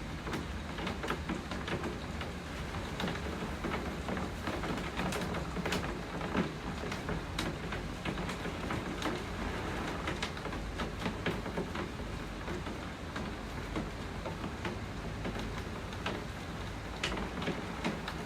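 Steady rainfall, with many sharp, irregular taps of drops striking a nearby hard surface.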